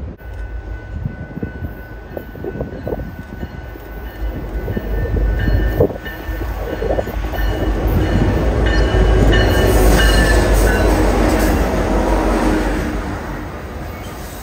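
BNSF freight train passing at speed behind its diesel locomotive: the engine rumble builds to its loudest about two-thirds of the way through as the locomotive goes by, then eases into the rolling of the coal cars' wheels on the rails.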